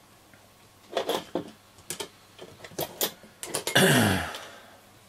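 Several light clicks and taps as small metal-cased transistors are picked up and handled on a cutting mat. About four seconds in comes the loudest sound, a short breathy vocal sound that falls in pitch.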